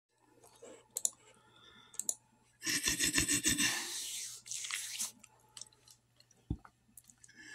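Handling noise of a phone held close to the face: a few small clicks, then about a second of rubbing and knocking right against the microphone about three seconds in, and a single thump near the end.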